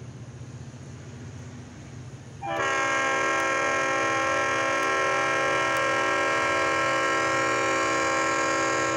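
Diesel locomotive air horn, one long steady blast that starts about two and a half seconds in and holds to the end. Before it there is only a low rumble.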